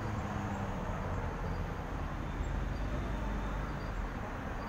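Steady low rumble of road traffic, with the drone of vehicle engines.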